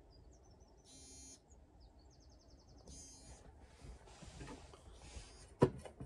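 Smartwatch timer alarm going off as its countdown reaches zero: two short, high buzzing chirps with little electronic blips between them. Handling noise at the kitchen counter follows, then a single sharp clack near the end.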